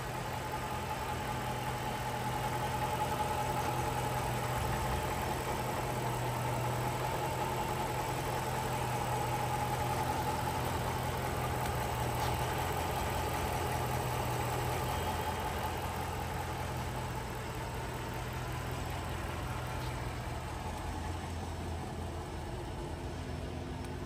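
Chrysler 300C's 5.7-litre Hemi V8 idling steadily with the bonnet open.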